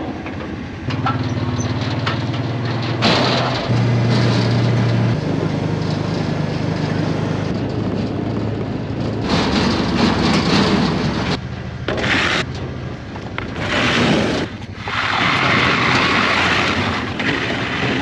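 Kawasaki Teryx side-by-side's engine running, strengthening as it pulls away about four seconds in, then driving along a dirt farm track towing a wagon, with repeated bursts of rushing noise.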